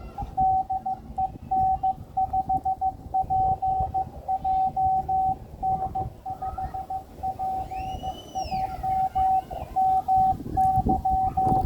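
Morse code (CW) from an amateur radio transceiver: a single steady mid-pitched tone keyed on and off in quick dots and dashes, over a hiss of band noise.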